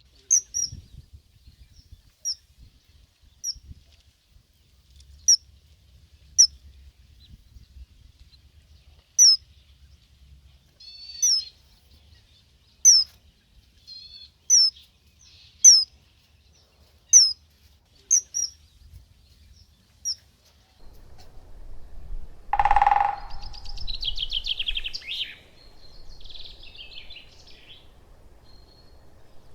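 Birds calling in the countryside: short, high, falling chirps repeated every second or so. About two-thirds of the way through comes a single louder, lower call, followed by a few seconds of quick twittering.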